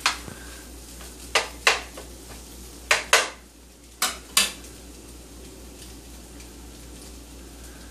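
Spatula clacking and scraping against a frying pan of scrambled eggs and fried potatoes: about seven sharp knocks, several in pairs, in the first four and a half seconds. Under them a low, steady sizzle of the food frying.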